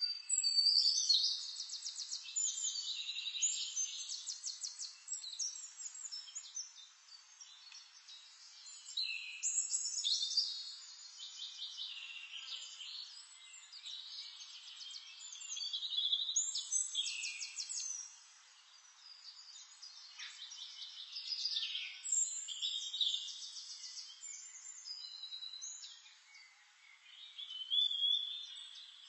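Songbirds singing, phrases of rapid trills and whistled notes coming in bouts every few seconds.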